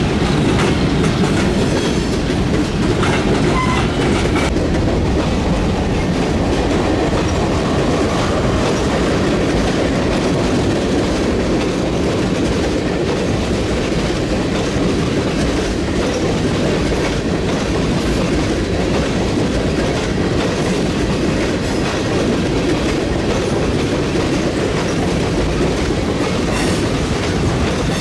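Freight train cars, tank cars then covered hoppers, rolling steadily past, their steel wheels making a constant loud noise on the rails, with clicking as the wheels pass over rail joints.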